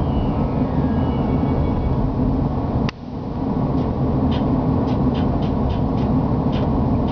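Steady road and engine noise of a car driving along, with a sharp click and a brief drop in level about three seconds in. Faint short high ticks come at irregular intervals in the second half.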